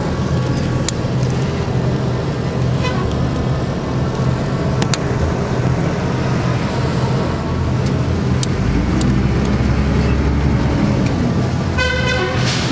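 Bus engine and road noise heard from inside the cabin, a steady low hum with rattles and clicks. Near the end comes a short blast of the horn.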